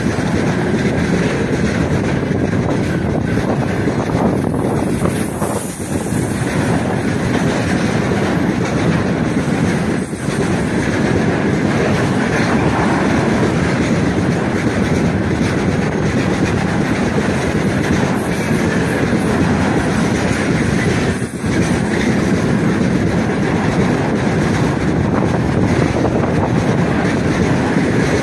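Freight train of railway tank cars rolling past close by: loud, steady noise of steel wheels running on the rails, with a few brief dips.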